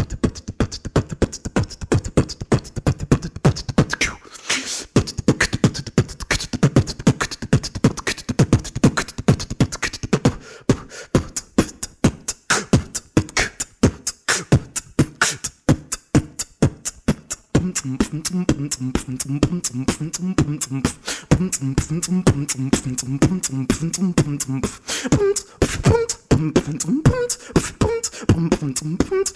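Beatboxing: a fast, steady run of vocal percussion, kicks, snares and hi-hat clicks made with the mouth. About two-thirds of the way in, a hummed bass-line melody joins the beat.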